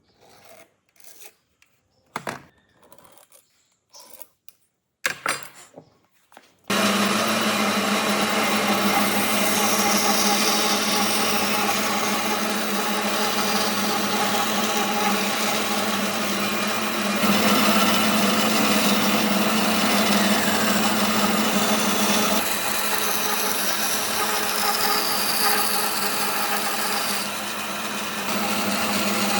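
A few scattered knocks of wood being handled, then from about seven seconds in an electric power tool starts up loud and runs steadily, working wood.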